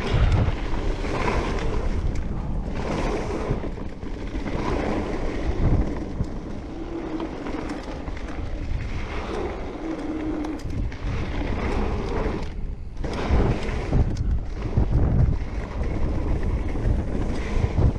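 Wind buffeting the microphone and tyres rumbling over the dirt trail as an electric mountain bike rides downhill, with a few sudden jolts where the bike hits bumps.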